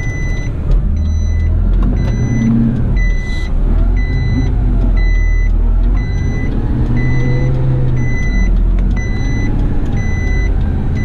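A heavy rigid truck's reversing alarm beeping steadily, about four beeps every three seconds, over the low running of its engine as the truck backs up.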